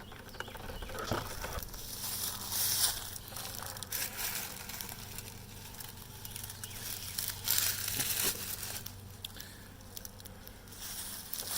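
Rustling, crinkling handling noise in a few short bursts, about a second in, around three seconds, near eight seconds and at the very end, from a beehive being opened by hand, over a faint steady hum.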